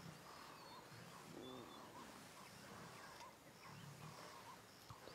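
Lionesses growling faintly and low while feeding at a kill, a soft rumble about once a second.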